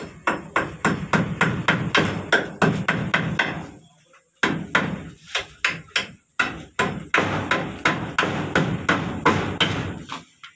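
A hammer striking repeatedly overhead at about four blows a second. The blows come in two long runs, with a short pause about four seconds in.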